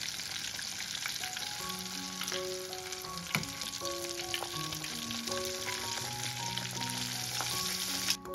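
Coated chicken breast deep-frying in hot oil in a saucepan: a dense, steady sizzle full of fine crackles, with one sharp clack about three seconds in while it is moved with metal tongs. The sizzle cuts off suddenly just before the end. Soft background music of slow single notes plays along.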